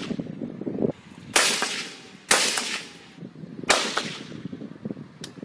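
AK-47 rifle fired in single shots: three loud shots over about two seconds, each trailing off in a long echo, then a fainter sharp crack near the end.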